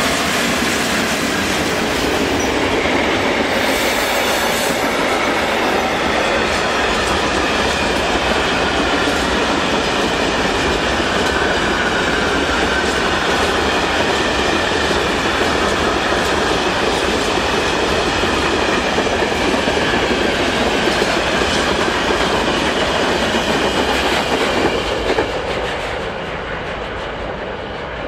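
Long freight train passing, its wagons' wheels clattering over the rails in a continuous loud rush that eases off near the end as the last wagons go by.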